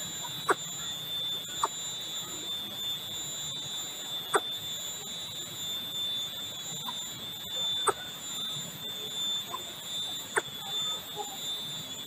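A steady high-pitched whine with a higher overtone, broken by a sharp click every one to three seconds.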